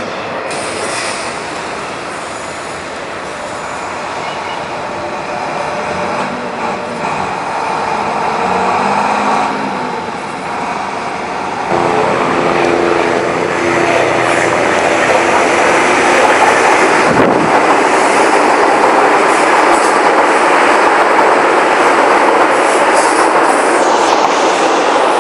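São Paulo Metro train running on the tracks: rail and wheel noise with a motor whine that rises and falls in pitch. About twelve seconds in it turns abruptly louder, a steady rumble and wheel noise as a train runs close by.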